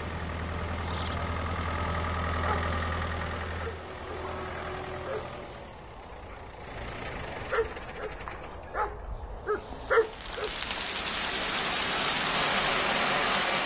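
A dog barks about half a dozen short times, the last bark the loudest. Then a steady rushing hiss sets in as seed grain pours into a seed drill's hopper.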